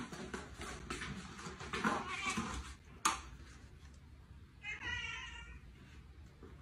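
A domestic cat meowing twice, once about two seconds in and again about five seconds in, with a single sharp knock about three seconds in.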